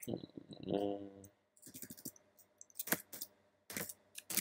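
Keystrokes on a computer keyboard: a few separate key clicks, spaced out rather than in a typing run.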